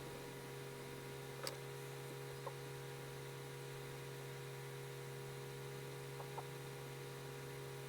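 Steady electrical mains hum over a faint hiss, broken by a few light ticks: one about a second and a half in, another a second later, and two close together near the end.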